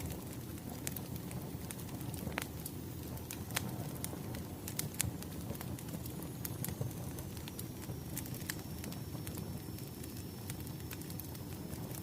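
Wood fire crackling: a steady low rumble of burning logs with scattered sharp pops and snaps. A faint, thin high whistle comes in about halfway.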